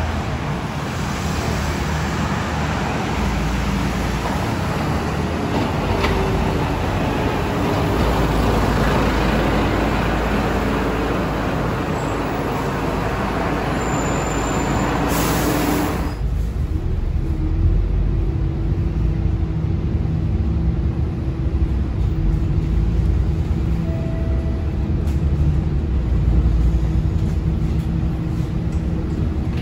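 Traffic noise as a Volvo B9TL double-decker bus pulls in, with a brief hiss just past halfway. Then the sound changes suddenly to the bus's own diesel engine running and road rumble heard from the upper deck, with a steady hum.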